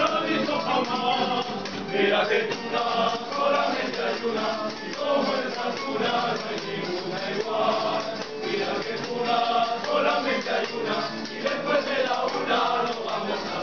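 A tuna, a Spanish-style student string band, with a group of male voices singing together over strummed guitars and bandurrias.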